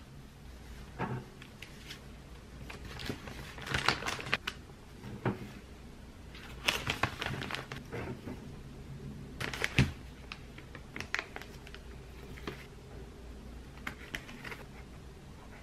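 Gloved hands lifting baked cookies off a metal wire cooling rack and packing them into plastic bags: scattered light taps, clicks and crinkling in short clusters.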